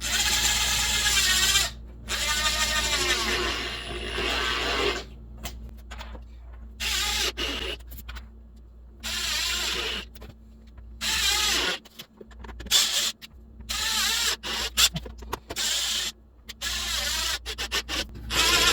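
Power drill driving screws in repeated short bursts, its motor speeding up and slowing with the trigger, stopping and starting about eight times. The screw is not grabbing in the plywood.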